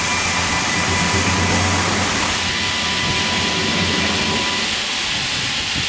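Steady hiss of steam from a GWR 0-4-2 tank steam locomotive, with a low rumble underneath.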